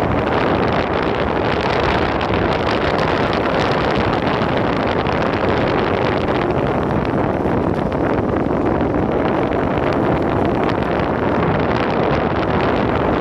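Steady, loud wind rushing over a phone's microphone while riding an electric skateboard at speed.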